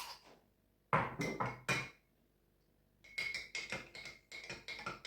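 A spoon clinking against a cup as honey is stirred into the garlic-and-ginger juice. A few sharp knocks come about a second in, then after a short pause a quick run of clinks with a ringing tone from the cup.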